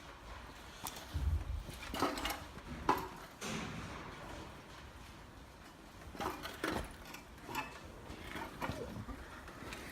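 Scattered, irregular knocks and clunks, a few in each second or two, with no steady running sound.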